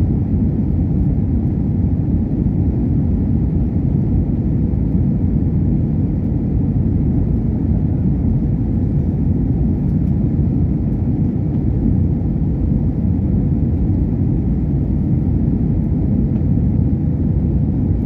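Steady, loud engine and airflow rumble inside an airliner's passenger cabin during the descent on final approach.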